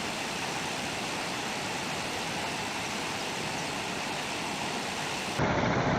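Steady rushing noise of flowing water. About five seconds in it cuts abruptly to a louder, lower rumble.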